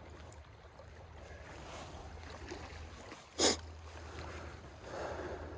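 Faint running stream water over a steady low rumble, with one short, sharp noise about three and a half seconds in.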